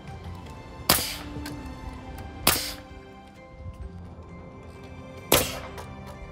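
Nail gun firing three times into wooden roof rafters, each shot a sharp crack with a short hiss trailing after it, over soft background music.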